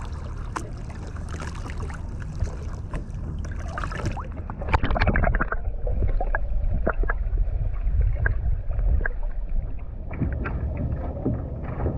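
Small waves lapping and sloshing around a kayak, with some wind on the microphone. About four seconds in there is a splash, and from then on the sound is muffled and low, heard from under water, with scattered sharp clicks.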